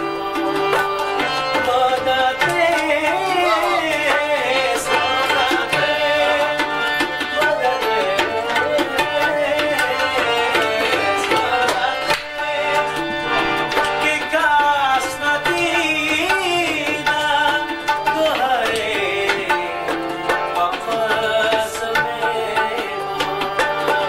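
A man singing with ornamented, wavering vocal lines, accompanied by a hand-pumped harmonium's held chords and a tabla pair played in a steady rhythm, the bass drum's deep strokes under the treble drum's sharp ones.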